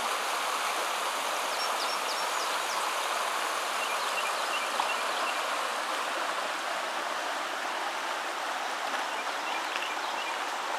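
Shallow creek rippling over rocks: a steady rushing of water, with a few faint high chirps over it.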